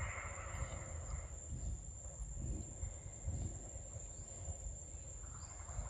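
Steady high-pitched drone of insects in the forest, unbroken throughout, over a faint low rumble.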